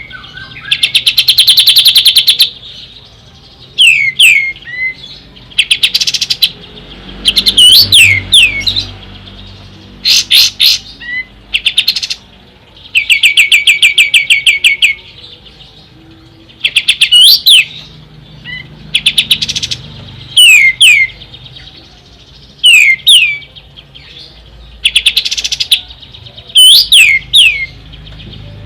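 Kapas tembak songbird singing: loud phrases every couple of seconds, some fast trills of rapidly repeated notes lasting a second or two, others short groups of sweeping, curved whistles.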